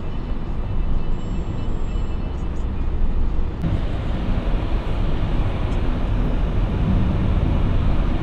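Steady road and engine rumble heard inside the cabin of a moving Toyota vehicle on a highway. About three and a half seconds in, the noise turns brighter and a little louder.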